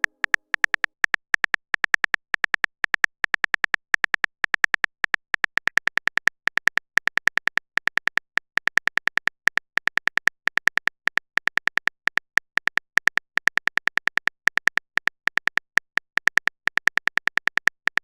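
Phone touchscreen keyboard typing sounds: a rapid, uneven run of short, high clicking beeps, several a second, as a text message is typed.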